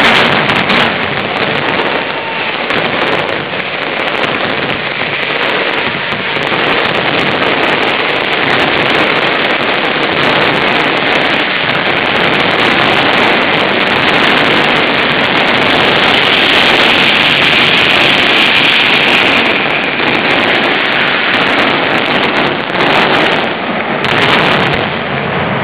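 Mascletà firecrackers going off in a dense, unbroken barrage of rapid bangs that merge into one continuous crackle, heaviest in the middle.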